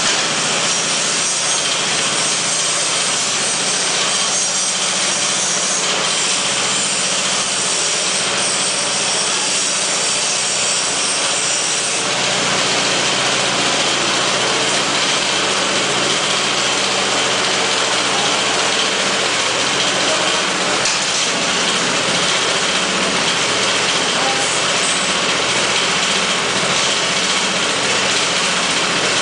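Small engine of an automatic road-marking machine running steadily, with a slight change in its sound about twelve seconds in.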